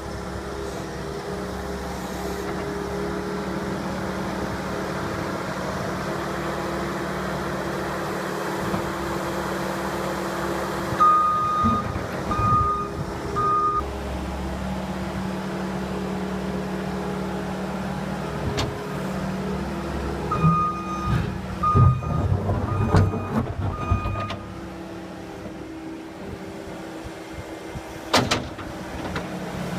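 Skid steer engine running steadily, with its backup alarm beeping three times about eleven seconds in and five more times around twenty seconds in. A few knocks come during the second run of beeps, and a short sharp sound comes near the end.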